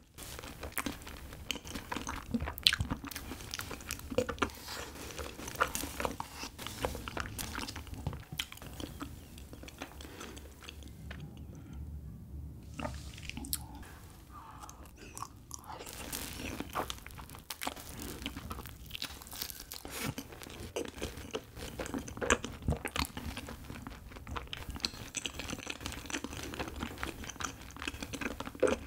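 Close-miked chewing and biting of soft, chewy Korean rice cake (tteok) with ice cream: a steady run of small, sticky mouth clicks, with a brief pause a little before halfway.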